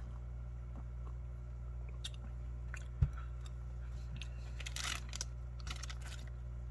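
Chewing a dry, crunchy ration biscuit, with crackly crunches a little before the end. A single low thump comes about three seconds in.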